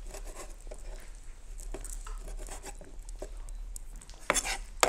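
Chef's knife chopping shelled shrimp on a wooden cutting board: a quick, uneven run of light taps, with two louder knocks near the end.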